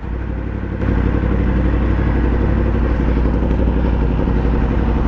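Yamaha MT-10's crossplane inline-four engine running at low, steady revs, getting louder about a second in and then holding even.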